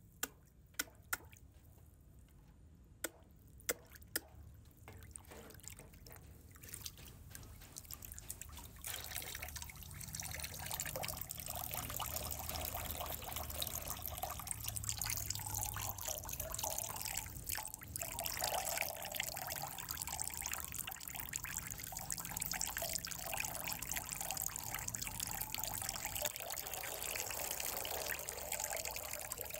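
Water trickling steadily. It is faint at first with a few sharp clicks, then grows louder and fuller about nine seconds in.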